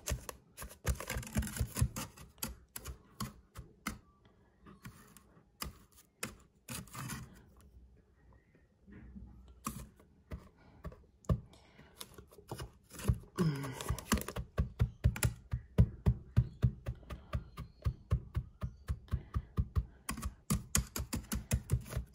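Bottom of a drinking glass tamping buttered biscuit crumbs down into a springform pan for a cheesecake crust: a run of quick light taps and clicks. The taps thin out and go quiet for a few seconds in the middle, then come fast and steady again, several a second.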